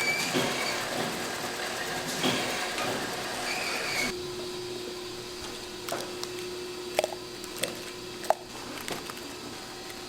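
Processing machinery running with a steady mechanical noise that drops suddenly about four seconds in. A quieter steady hum with a few sharp clicks follows.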